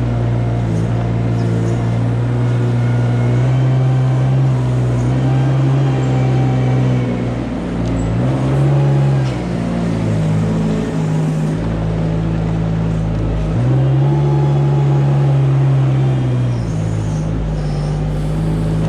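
A machine engine running steadily, its pitch rising and falling back briefly a little under halfway through, then rising again about two-thirds of the way through and holding for a few seconds.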